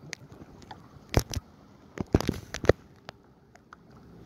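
Small waves slapping against the hull of a Yamaha VX jet ski floating at rest, its engine not running: short, irregular knocks and splashes, with a cluster of them about two seconds in.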